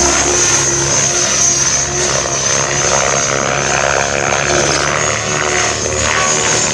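Mikado Logo 700 electric RC helicopter flying aerobatics: the whoosh of the 710 mm main rotor blades and a steady high whine from the electric motor and drivetrain.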